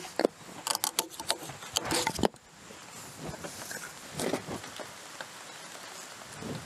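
A rapid series of sharp wooden knocks and cracks as chainsaw-cut offcut blocks are knocked free of a log post's tenon. The noises stop about two seconds in, followed by a few softer knocks of the loose blocks being handled on sawdust.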